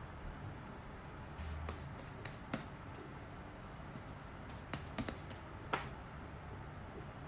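Light clicks and taps of hands and baking tools on a kitchen countertop: a cluster of sharp ticks about a second and a half in, and another about five seconds in, the last one the loudest.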